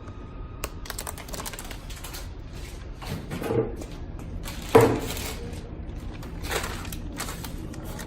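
Irregular clicks and rustling of something being handled, with a sharp knock about five seconds in, the loudest sound here.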